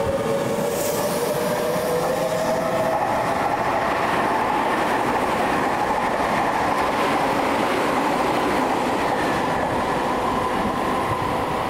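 Electric commuter train running on the Seibu Ikebukuro Line, a steady rolling rumble with a clickety-clack of the wheels. A motor whine rises slightly in pitch over the first few seconds, then a steady higher tone holds.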